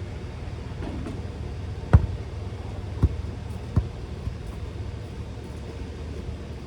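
A basketball bouncing three times, about 2, 3 and 3.8 seconds in, the first bounce the loudest, over a steady low rumble.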